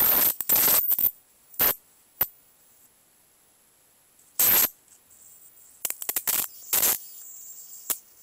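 High-voltage arcs from a small black-and-white TV's flyback transformer jumping to a screwdriver tip, crackling in short, irregular bursts with quiet gaps between. There is a run of arcs at the start, single snaps in the middle, and a cluster of them about six seconds in.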